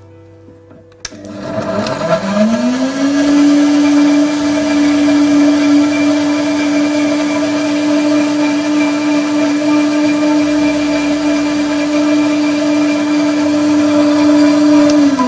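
High-powered countertop blender, with its sound-enclosure cover closed, blending a pineapple and spinach smoothie. A click about a second in starts the motor, which speeds up over about two seconds to a steady high whir and holds there. It begins to wind down right at the end.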